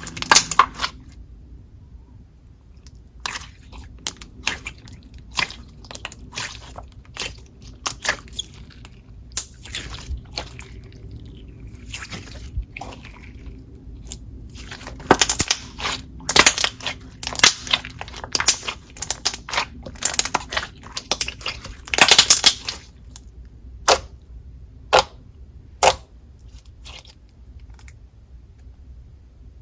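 Glossy, clicky slime being squeezed, stretched and folded by hand, giving sharp clicks and bubble pops at irregular intervals, busiest in the middle.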